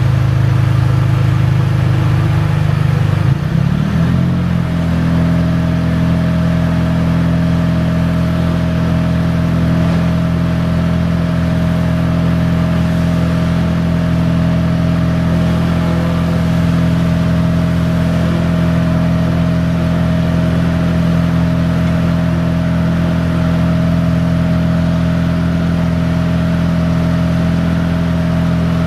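Crane truck's engine running to power the Terex Telelect C5050 crane's lift: it speeds up about three to four seconds in, then runs steadily at the higher speed, with a steady thin whine from about five seconds on.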